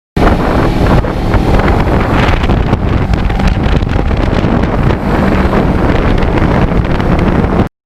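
Heavy wind buffeting the microphone on a moving motorcycle, with a low engine note underneath; it cuts in and cuts off abruptly.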